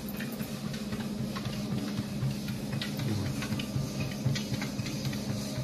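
Motorised treadmill running with a steady low hum while a Siberian husky puppy's paws tap irregularly on the moving belt.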